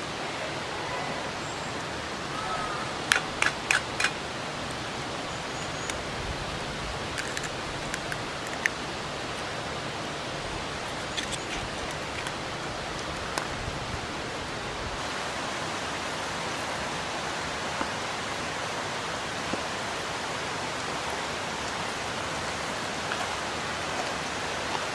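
Steady rushing of a mountain stream, with a few sharp clicks and taps over it, four in quick succession about three seconds in.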